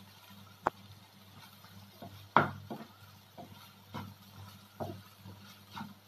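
Wooden spatula stirring and scraping paneer bhurji around a frying pan, giving scattered scrapes and taps. There is a sharp click at about two-thirds of a second and the loudest knock at about two and a half seconds.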